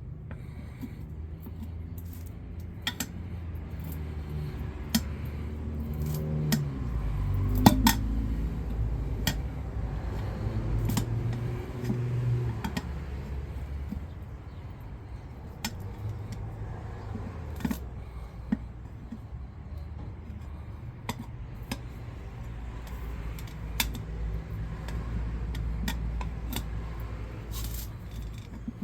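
Sporadic metallic clinks and scrapes of hand work pressing a new SunF Power II tire's bead onto a mini bike rim, over a low rumble.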